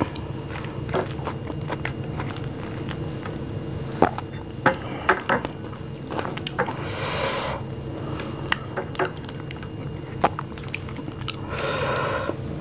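Fingers mashing and mixing soft rice with bhorta on a plate: wet squishing with many small clicks of fingertips against the plate, and two longer squishy stretches, about seven seconds in and near the end. A faint steady hum lies underneath.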